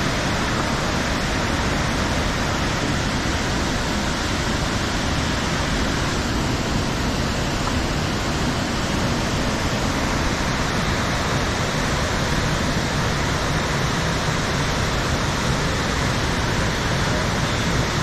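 Waterfall: a steady, loud rush of falling water with no change throughout.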